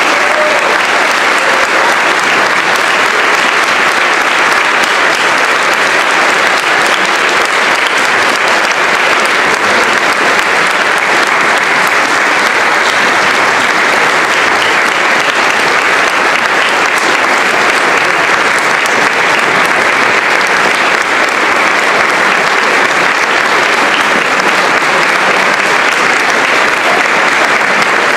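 Large audience applauding steadily in a standing ovation.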